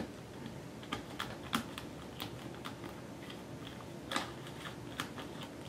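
Light, irregular clicks and taps of a clear acrylic stamp block, loaded with butterfly stamps and acrylic paint, being pressed down onto paper and handled by fingers; the loudest click comes about four seconds in.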